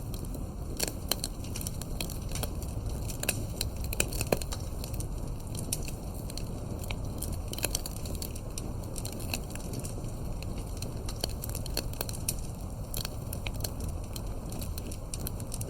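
Wood fire crackling in a fireplace, with irregular sharp pops over a low steady rumble.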